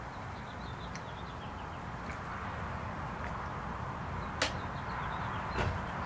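A small songbird gives a quick run of short, high chirps against a steady outdoor hiss. A single sharp click comes about four and a half seconds in.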